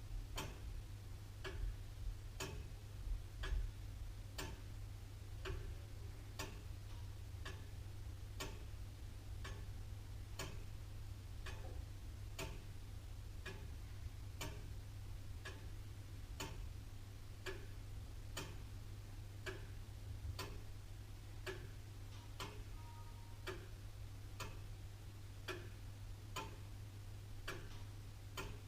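Antique William Holliwell of Liverpool clock ticking steadily, about one tick a second. A low steady hum runs underneath.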